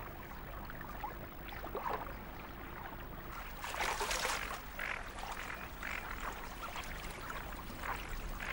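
Water splashing from diving ducks feeding. One longer splash comes three to four seconds in, as a duck plunges under, followed by a few shorter splashes.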